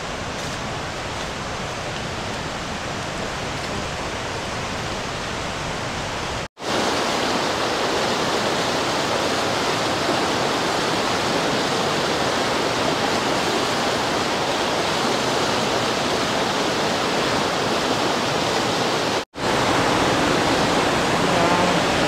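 Steady rush of water flowing over rock in a rainforest creek at a waterfall. It drops out twice for a split second and is a little louder after each gap.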